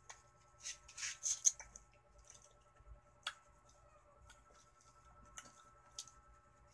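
Wet mouth sounds of someone eating with their hands: a quick run of lip smacks and finger-licking in the first second and a half, then a few single smacks while chewing. A faint steady hum lies underneath.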